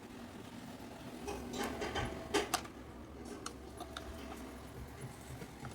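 Scattered light clicks and taps of small objects being handled, over a low steady hum that starts about a second in.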